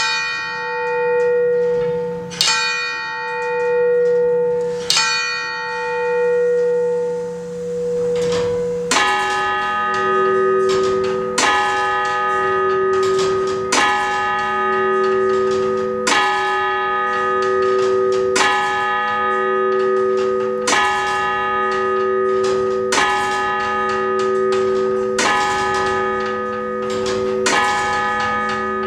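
Church-tower bells striking the hour at midnight, heard up close inside the belfry. One bell strikes three times about two and a half seconds apart, each stroke ringing on; from about nine seconds a second bell takes over with slow, even strokes roughly every two and a quarter seconds, nine of them, each ringing on into the next.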